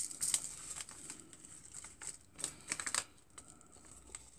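Paper seed packets rustling and crinkling as hands pick them up and handle them, with a scatter of light clicks and crackles.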